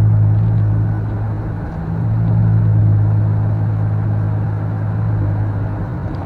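Steady low engine drone and road noise heard inside a car cruising at highway speed. It eases off briefly just before two seconds in, then builds again.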